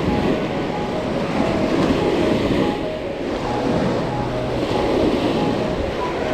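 Rough ocean surf washing onto a beach, a steady rushing noise that swells and eases, with wind on the microphone, under background music with a melody of short notes and a low bass.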